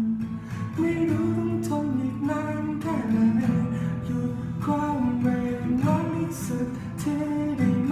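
Acoustic guitar strummed and picked through a song's instrumental passage, with a voice faintly singing along.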